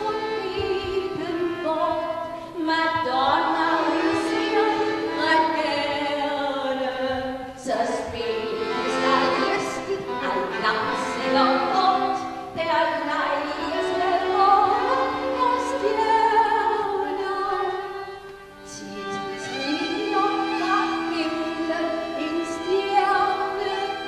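A woman singing a song in Danish with violin accompaniment, in long sung phrases with a brief break about three quarters of the way through.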